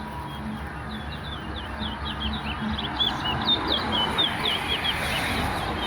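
Caged towa-towa seed finch singing a fast run of short whistled chirps, several notes a second, thickest in the middle stretch.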